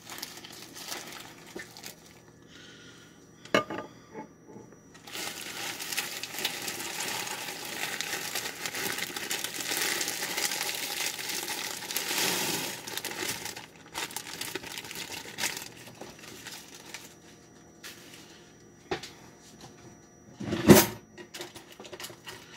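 A plastic bag of frozen corn crinkling as it is torn open, then frozen corn kernels pouring from the bag into a saucepan of thick sauce, a steady rush of noise for about eight seconds. Near the end there is one sharp knock.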